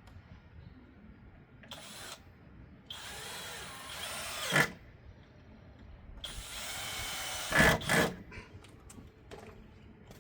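Power drill driving two pocket-hole screws into wood, after a short blip of the trigger about two seconds in. Each screw is a steady run of a second and a half or so that ends in a sharp, louder burst as the screw pulls home.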